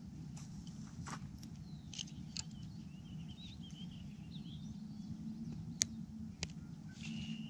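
Outdoor ambience with birds chirping faintly through the middle, and a few sharp clicks and handling noises from a fishing-line spool and scissors, the sharpest about six seconds in.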